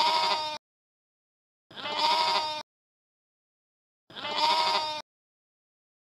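A sheep bleating three times, about two seconds apart, each a long baa of almost exactly the same shape.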